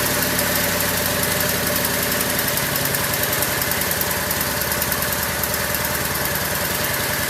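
Craftsman lawn tractor's small gasoline engine idling steadily. It is running smoothly again after more than a year of not starting, with a new fuel pump and a largely rebuilt carburetor.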